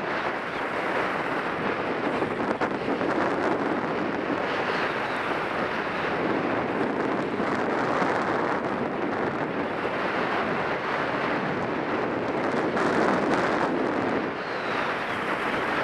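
Skis scraping and hissing over groomed piste snow, swelling and easing every few seconds with the turns, mixed with wind rushing over the camera microphone on the descent.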